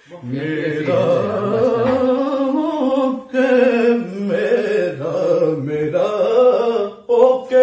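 A man singing a Punjabi rubai unaccompanied, drawing out long, wavering ornamented notes between words, with brief breaks for breath.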